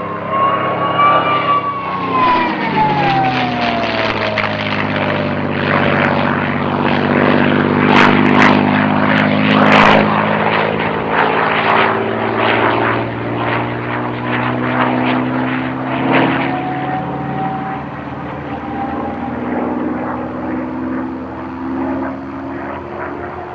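P-51D Mustang's Packard Merlin V-12 engine in a low flyby. A high whistle and the engine note fall in pitch as the fighter passes in the first few seconds, then the engine drones on steadily as it banks around. It is loudest, with a few sharp crackles, around eight to ten seconds in, and the whistle returns faintly near the end.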